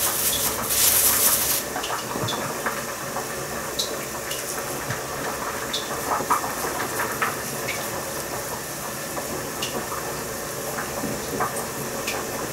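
A plastic bag rustling and crinkling in the first second or so, then the soft, sticky patting of raw minced meat being rolled into meatballs between the palms, with small scattered clicks over a steady hiss.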